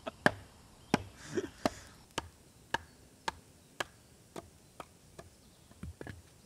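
A wooden baton knocking on the spine of a knife to split small logs into kindling on a wooden chopping block: a steady run of sharp wooden knocks, about two a second.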